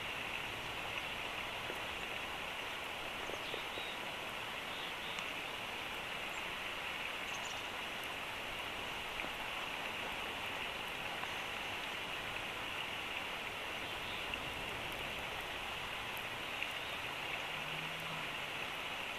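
Steady, even hiss of outdoor ambience picked up by the nest camera's microphone, with a few faint scattered ticks.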